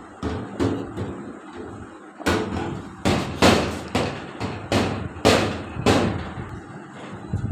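A handheld microphone banged repeatedly against a metal filing cabinet: about a dozen irregular, ringing metallic bangs, loudest in the middle.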